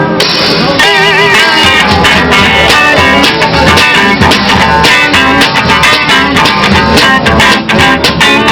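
Band playing an instrumental break in a blues-rock song: a lead guitar holds wavering vibrato notes over steady drums and bass.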